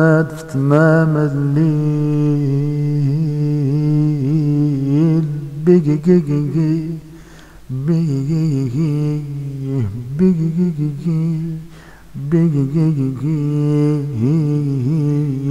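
A solo male voice singing long, ornamented held notes in an Arabic devotional chant, with no instruments, pausing for breath twice.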